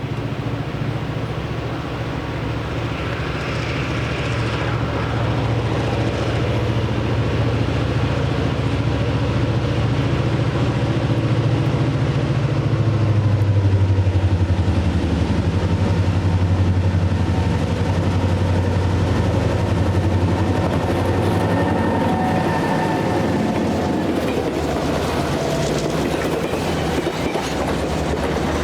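Diesel-electric locomotive (EMD GP38-2, 16-cylinder two-stroke) working as it pulls a passenger train away. Its engine note changes about twelve seconds in as the throttle moves up a notch.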